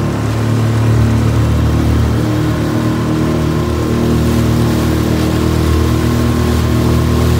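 Outboard motor running at a steady speed as a small aluminium fishing boat moves along, with water rushing and splashing along the hull.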